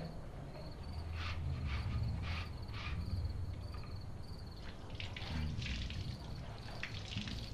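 Night-time room ambience: crickets chirping in a steady high trill over a low hum, with a few soft, short noises scattered through it.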